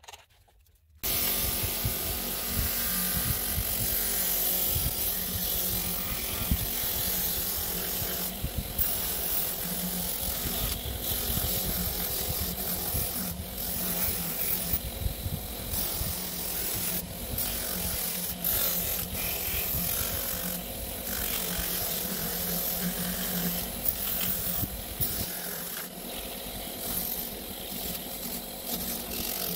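A small electric power tool running steadily, starting suddenly about a second in, with a low hum under a rough hiss and brief dips now and then.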